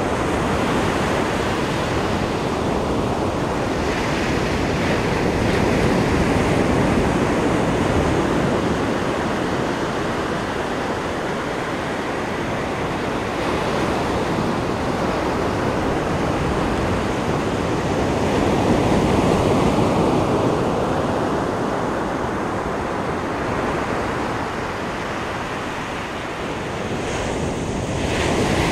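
Ocean surf breaking and washing up the beach in a continuous rush, rising and falling in slow swells every several seconds.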